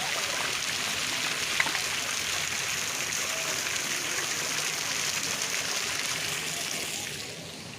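Steady splashing and rushing of falling water from an ornamental fountain, which drops away about seven seconds in.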